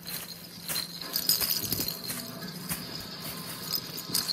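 Crinkly rustling and rattling of a pop-up fabric play tunnel as a cat wrestles inside it with a feather wand toy, with quick scratchy clicks and a light jingling.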